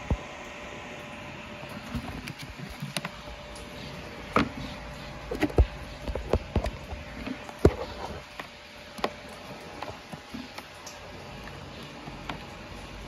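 Plastic wiring-harness connectors and braided wire leads being handled and pushed into place inside a generator, making scattered irregular clicks and taps over a steady background hum.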